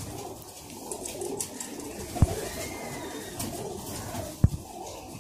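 Domestic pigeons cooing in a low, steady murmur, with two short clicks about two and four and a half seconds in.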